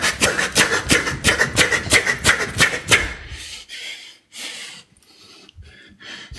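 A fast run of sharp percussive hits, about five a second, that stops about three seconds in, followed by a few breathy exhales.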